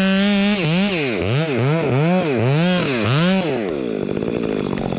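Chainsaw at full throttle cutting into a dead, hollow red oak. Its engine note dips and recovers about twice a second, then falls back toward idle about three and a half seconds in.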